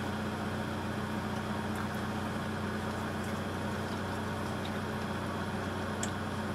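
Steady low mechanical hum with a faint tick near the end.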